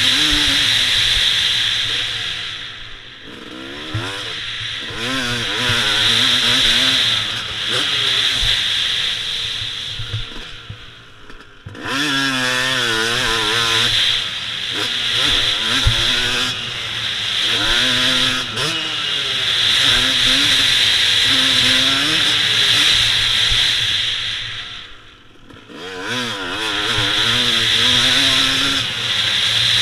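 Dirt bike engine heard from a camera on the bike, revving up and down again and again as it is ridden hard, with a steady high hiss over it. The engine sound drops away briefly three times, about 3, 11 and 25 seconds in, then picks back up.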